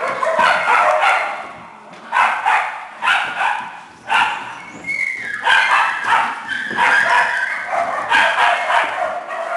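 A group of small dogs barking and yapping over one another, in repeated bursts with short lulls.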